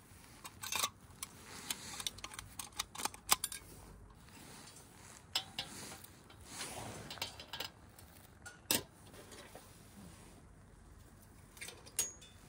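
Handling sounds from a heated vest being examined: scattered light clicks and taps, with a soft rustle of fabric about six seconds in.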